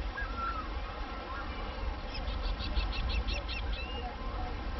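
Beach surf with a steady low rumble. Over it a bird gives a few short whistles, then about two seconds in a quick run of about ten chirps lasting a second and a half.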